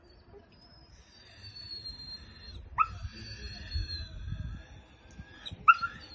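A young dog that has been hit by a car and cannot move its hind legs whines in distress in long, high, slowly falling whines, with short sharp yelps about three seconds in and near the end.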